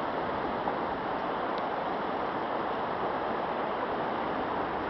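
Fast-flowing river with rapids rushing steadily.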